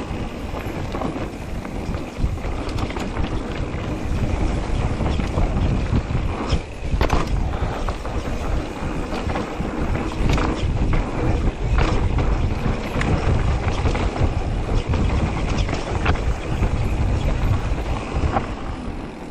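Mountain bike descending a dirt forest trail: wind rumble on the microphone and tyres on dirt, with frequent short knocks and rattles from the bike over bumps.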